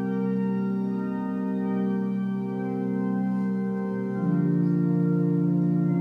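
Church organ playing held chords; about four seconds in the chord changes and grows louder.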